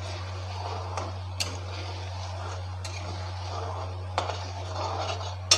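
Metal spatula stirring and scraping spice masala frying in oil in a metal kadai, with a low sizzle and several sharp clinks of the spatula against the pan, the loudest near the end.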